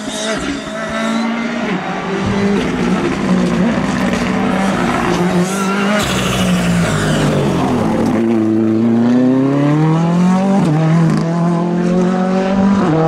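Rally car's engine at full song as it approaches, with the revs falling steeply under braking for a hairpin. The revs then climb hard as it accelerates away, with a sharp drop at a gear change followed by a further climb.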